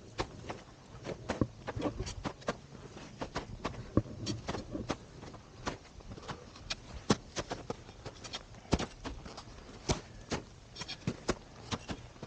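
Footsteps with the small clicks and knocks of climbing gear, irregular, a few a second.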